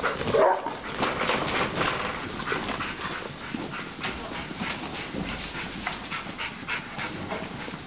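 Working sheepdog barking and whining among a pen packed with hoggets, one louder call about half a second in, over a constant clatter of many small knocks as the crowded sheep shift about.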